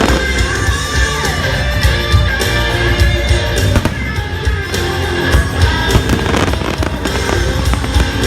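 Show music playing loudly, with fireworks going off over it: repeated bangs and crackles throughout.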